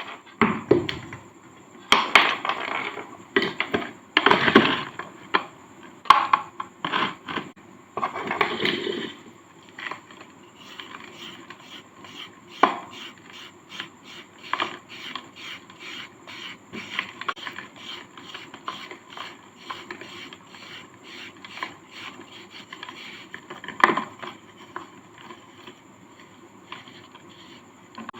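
Hard sand-cement cake being scraped and crumbled. Loud, irregular crunches for about the first ten seconds, then a quicker run of short scraping strokes, about four a second, with the odd louder crunch.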